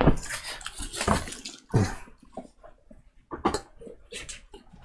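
Handling noise from an insulated water bottle and its lid: a few separate knocks and clicks with light rattling between them.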